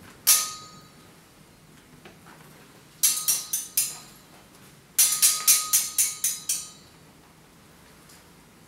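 Metal striking metal with a short ringing note: one clang, then a quick run of about five strikes, then a longer rapid run of about eight.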